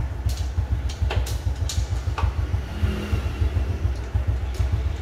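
Honda Future Neo 125's single-cylinder four-stroke engine idling with a steady, rapid low throb, with a few sharp clicks over it in the first half.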